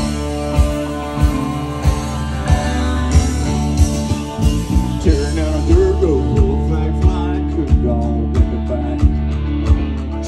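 Live country-rock band playing an instrumental passage with no vocals: a steady drum beat at about three hits every two seconds under electric bass and guitars, with a lead guitar line bending in pitch about halfway through.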